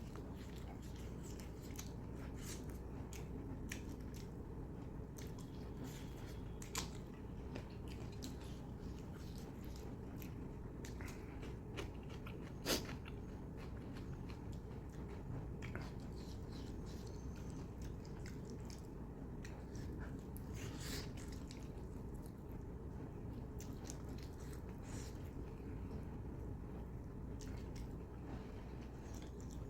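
Close-miked chewing and wet mouth clicks of a person eating mutton curry with roti, a scattering of smacks over a steady low background hum, with one sharp click about 13 seconds in.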